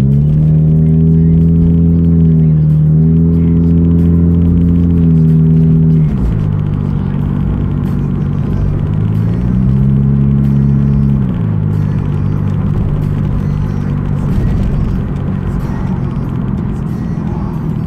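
Inside a moving car's cabin: steady road and engine noise. A low humming tone rises at the start, dips briefly, cuts off about six seconds in and comes back for a couple of seconds around ten seconds in.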